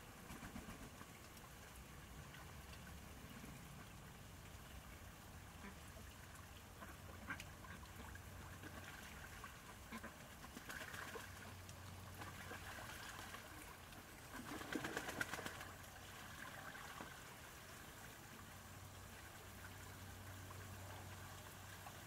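Domestic ducks splashing and dabbling in a shallow tub of water, faint overall, with soft quacks now and then and a brief louder flurry of splashing about fifteen seconds in.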